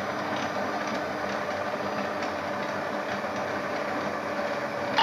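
Electric mixer running steadily, beating milk into cake batter, with one short sharp knock right at the end.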